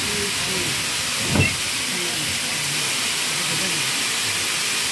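Small steam tank locomotive standing with steam hissing steadily, blowing off in a tall plume. A single short knock comes about a second and a half in.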